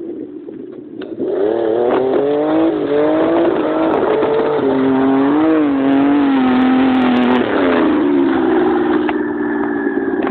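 Engine of a homemade Daewoo Tico-based buggy revving under load as it climbs a slope: after a quieter first second the pitch rises and wavers with the throttle, then drops to a steadier, lower run near the end as the buggy pulls up close.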